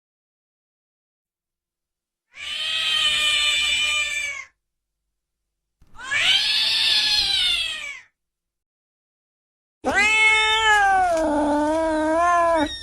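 Three separate drawn-out domestic cat meows, each two to three seconds long, with dead silence between them. The first is held fairly level. The second rises and then falls in pitch. The third wavers and drops lower in the middle.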